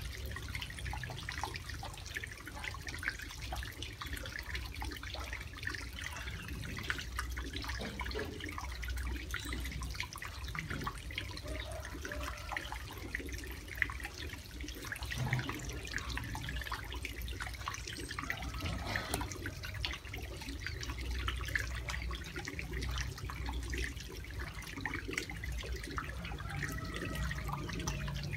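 Water splashing and dripping in a plastic basin as hands clean and gut live eels, with many small splashes and drips throughout.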